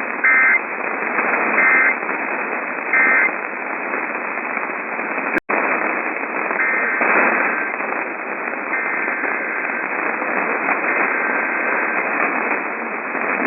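Emergency Alert System end-of-message signal: three short bursts of two-pitch data tones about a second and a half apart, over a hissing, static-filled radio broadcast. About five seconds in, the signal drops out for an instant, then the hiss and static continue with a few faint tones.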